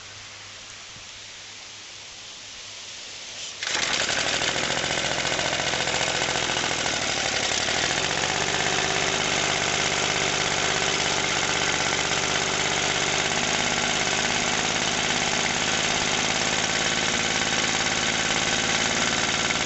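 A 1963 2.25 hp Briggs & Stratton single-cylinder engine catching on a cold start at full choke about three and a half seconds in, then running steadily; its low note shifts about four seconds after it starts.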